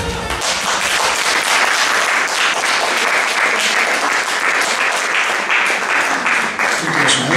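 Music cuts off right at the start, then an audience applauds steadily.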